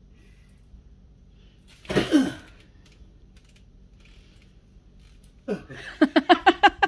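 A person's wordless vocal sounds: one loud breathy cry falling in pitch about two seconds in, then a quick run of short voiced bursts near the end.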